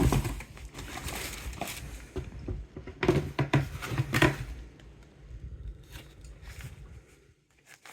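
A shoebox being opened and the shoes taken out and handled: rustling and crinkling with scattered clicks and knocks, busiest about three to four seconds in, then fading.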